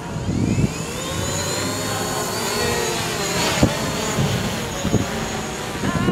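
Small quadcopter drone's propellers whining as it is launched from the hand, the pitch rising over the first couple of seconds as the motors spin up, then holding steady as it flies off. A couple of sharp clicks come midway.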